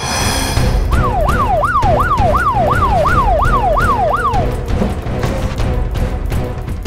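Police car siren in yelp mode: a fast rising-and-falling wail that repeats about nine times over roughly three and a half seconds, starting about a second in, over a low rumble.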